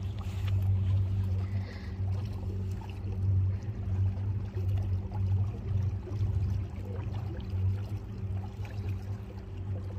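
Electric outboard motor driving a small boat, a steady low hum, with water running along the hull.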